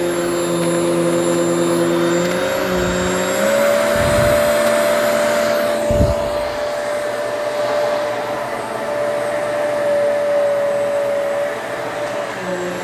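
Hoover Elite Swivel XL Pet upright vacuum cleaner running steadily; its motor tone steps up a little in pitch about three and a half seconds in and drops back near the end. Two low thumps come at about four and six seconds in.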